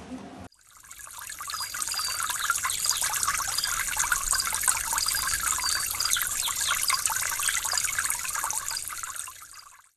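Trickling, running water, fading in about half a second in and fading out just before the end, with faint short high chirps over it.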